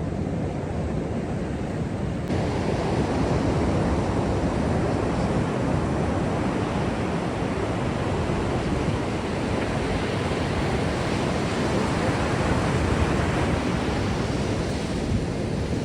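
Ocean surf washing onto a beach, a steady rushing noise that gets louder about two seconds in.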